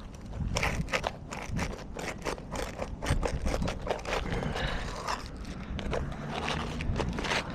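Asphalt roof shingles scraping and crackling as they are worked loose by hand and with a roof-repair tool, a rapid irregular run of short scrapes and clicks.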